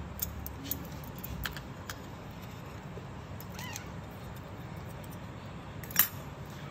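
Sharp metallic clicks and clinks of surgical instruments, hemostat forceps and scissors, as a newborn Shih Tzu puppy's umbilical cord is clamped and cut. There are a few light clicks at first and one much louder clink near the end. A faint, brief squeak comes from the newborn puppy midway.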